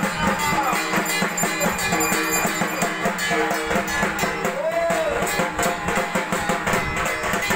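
Music with a steady, fast beat and a melody line.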